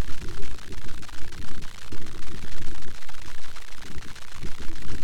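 Wind buffeting an outdoor camera microphone: an uneven low rumble that swells and drops over a steady hiss.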